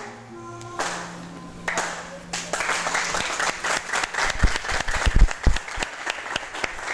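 An audience clapping at the end of a rap song. The song's last musical tones fade in the first couple of seconds, then the applause comes in and carries on.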